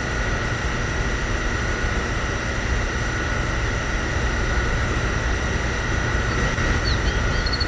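Steady drone of a small motor with a constant high whine over it, and a few faint high chirps near the end.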